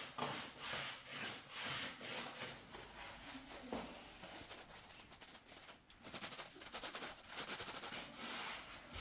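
Repeated rubbing and scraping strokes from plastering work on a socket-box hole, about one to two a second at first and quicker and denser near the end.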